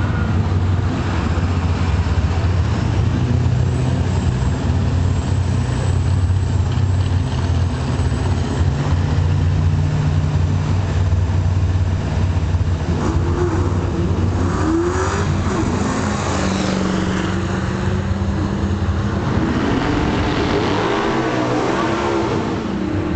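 Fox-body Ford Mustang engine idling loudly at a drag strip's starting line, then, about halfway through, launching and pulling away down the track, its pitch climbing and dropping repeatedly.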